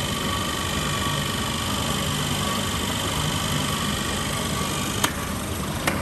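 Screw-press cow dung dewatering machine running steadily, a constant mechanical whir with a few steady tones and a low hum. Two sharp clicks sound about a second apart near the end.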